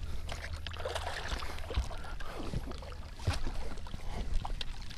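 Hooked bass splashing and thrashing at the water's surface as it is reeled in to the boat, with water sloshing and a few sharp splashes through the middle and near the end.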